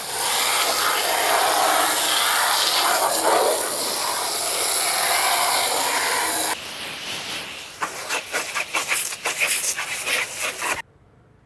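Garden hose spray nozzle spraying water hard onto the underside of a lawn mower deck and blade, a loud, steady hiss of water hitting the deck. After about six and a half seconds it turns quieter and uneven, in short spurts, then stops abruptly near the end.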